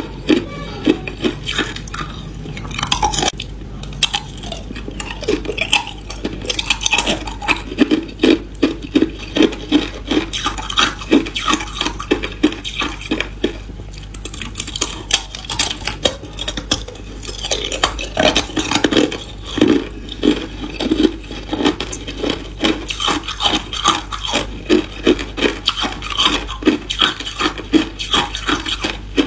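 Hard clear ice cubes being bitten off and chewed, a quick run of brittle crunches several times a second, with short lulls about four seconds in and again around the middle.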